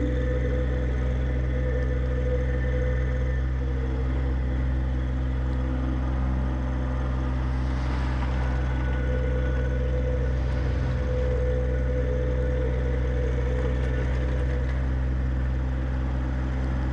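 John Deere 1025R subcompact tractor's three-cylinder diesel engine running steadily, with a faint higher whine that comes and goes.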